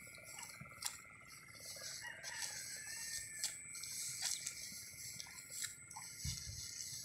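A rooster crows once, faintly, about two seconds in, over a steady high-pitched hiss of background noise.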